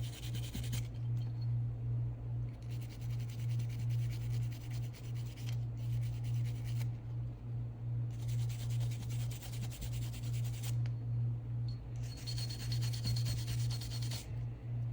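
A small brush scrubbing the engraved markings on a Springfield Armory Hellcat Pro Comp pistol slide, cleaning them out before colour fill. It is a rhythmic back-and-forth rubbing, about two strokes a second.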